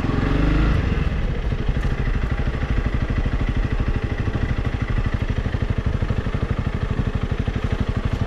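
Trail motorcycle engine running at low speed, a steady, even pulsing beat, with a brief swell of throttle in the first second.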